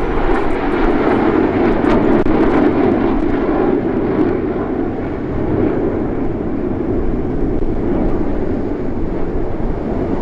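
Jet engine noise from a formation of aerobatic jets flying overhead: a steady, loud rush that eases slightly midway and then swells again.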